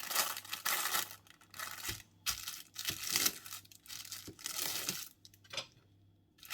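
Plastic bag crinkling and rustling in irregular bursts as a plastic model kit sprue is handled, going quiet about a second before the end.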